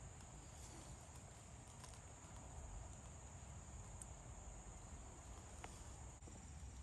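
Near silence: faint outdoor ambience with a steady high-pitched insect drone.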